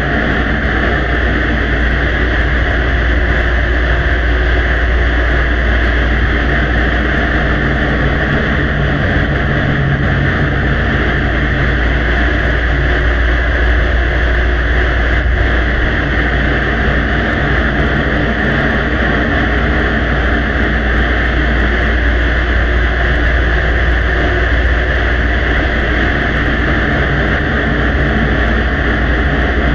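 Steady droning rumble and hiss of a heavily amplified recording, with a strong low hum and no distinct events.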